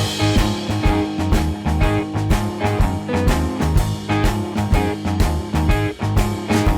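Background music with a steady beat, in a blues-rock style with guitar and drums.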